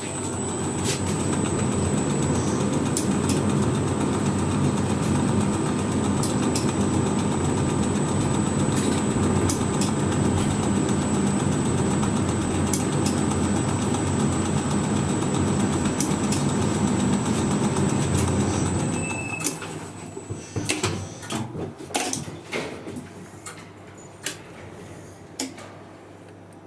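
A 1961 Schindler elevator running. A steady mechanical rumble with a thin high whine builds up, holds for about eighteen seconds, then dies away as the lift stops. A run of sharp clicks follows near the end.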